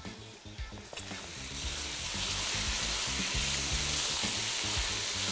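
Spiced beef strips frying in hot oil in a nonstick pan, sizzling as they are stirred with a spatula. The sizzle builds up about a second in and then holds steady.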